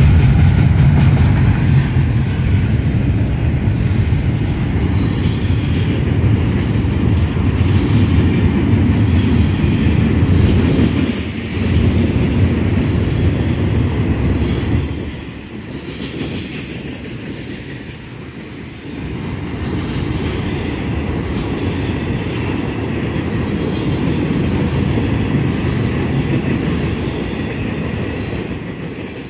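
Florida East Coast Railway intermodal freight train's double-stack container well cars rolling past, a steady rumble of steel wheels on the rails that drops off for a few seconds midway, then picks up again.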